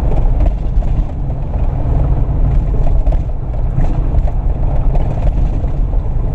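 Steady rumble of road and engine noise inside a moving car.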